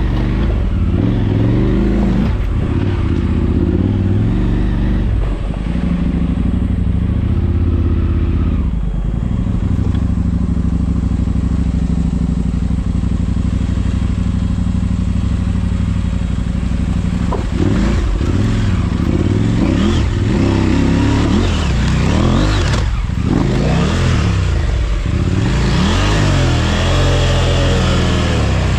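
Motorcycle engine running at a steady speed, then revving up and down repeatedly in the second half.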